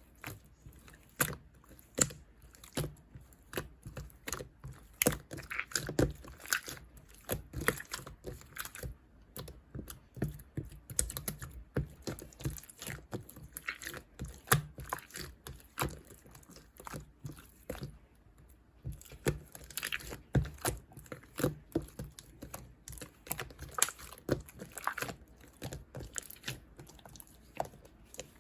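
Clear slime being squeezed and poked by hand, making a steady run of irregular small clicks, pops and squelches.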